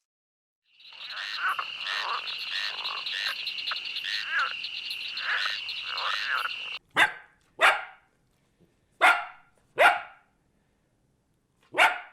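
Frogs croaking in a chorus, with repeated calls about twice a second over a steady high trill, for about six seconds. Then a dog barks five times in separate short barks.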